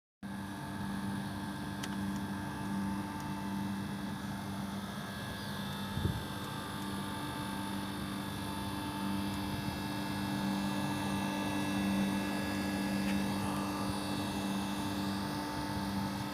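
Steady machine hum with several fixed tones over a continuous hiss, with one brief knock about six seconds in.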